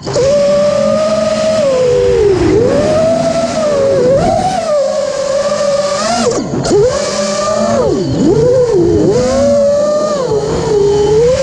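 A 5-inch freestyle FPV quadcopter's brushless motors and propellers whining, heard from on board. The pitch rises and falls constantly with the throttle, with sudden dips where the throttle is chopped during flips and rolls, such as one about six and a half seconds in.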